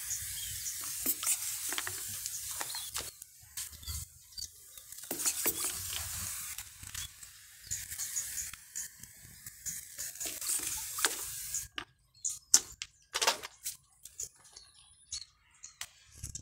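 Hand-pump water sprayer on a plastic bottle spraying water onto potting soil and rocks, a hiss that comes in three long stretches with short breaks. The spraying stops about 12 seconds in, leaving scattered clicks and taps.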